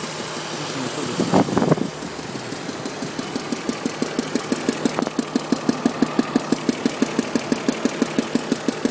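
BMW engine idling with a regular knock or tick, about five beats a second, that comes through clearly after the first few seconds; the owner can't tell whether it is an engine knock or an exhaust leak at the manifold or pipe. A short louder noise sounds about a second and a half in.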